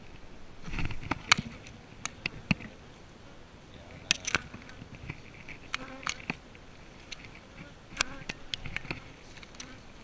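Honeybees buzzing around an open hive, broken by sharp clicks and scrapes as a metal hive tool pries at the wooden frames. The clicks come in clusters, about a second in, around four seconds, around six seconds and again near the end.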